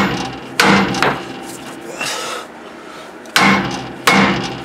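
Mini sledgehammer striking the steel of a car's steering linkage where a tapered joint stud passes through, three sharp metal-on-metal blows, each with a short ring. The blows are meant to jar the joint's taper loose, and it does not yet come free.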